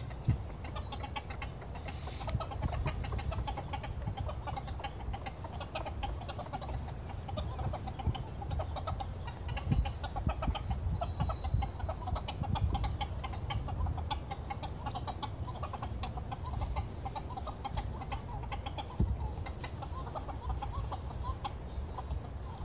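Hens clucking softly and continuously as they forage, short repeated calls over a low rumble.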